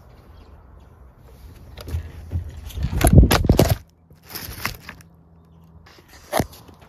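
A phone on a small tripod tipping over and falling, with heavy rubbing and knocking on its microphone building to a loud clatter about three seconds in, then a few sharp knocks as it comes to rest; the fall breaks off one of the tripod's feet.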